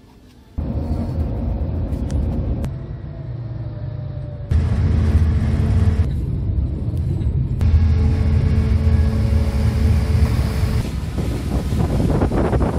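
A car ferry's engines running with a steady low rumble and hum. It starts abruptly about half a second in and jumps in level a few times where clips are cut together.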